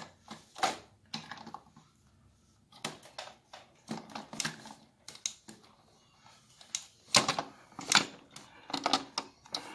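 Plastic toy train and track pieces being handled, giving irregular clicks and knocks, busiest in the second half.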